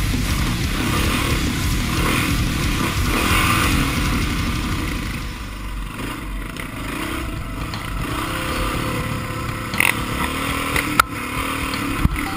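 Honda XR650R dirt bike's single-cylinder four-stroke engine running hard under throttle on a trail, heard from a camera on the bike. The engine eases off about five seconds in, and a sharp knock comes near the end.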